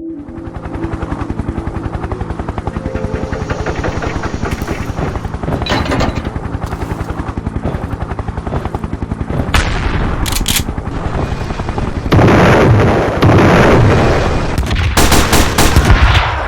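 Sound-effect automatic gunfire: a long, rapid, steady stream of machine-gun shots, growing louder and denser with heavier blasts about twelve seconds in.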